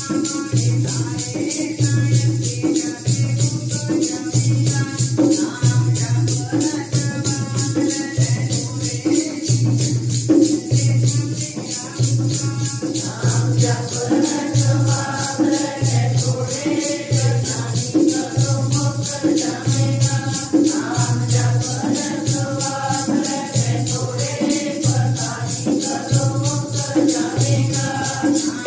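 Shabad kirtan: group singing of a Sikh hymn over a steady low drum beat and a constant jingling, shaker-like percussion rhythm.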